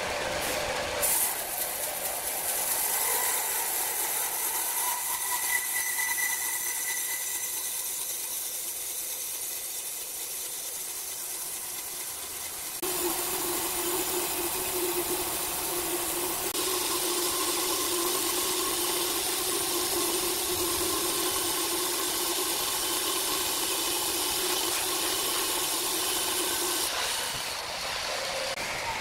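Log band sawmill running and cutting through a large wooden slab: a steady high hiss of the blade in the wood over the machine's hum. About halfway through, the sound changes abruptly to a steadier hum with a held tone.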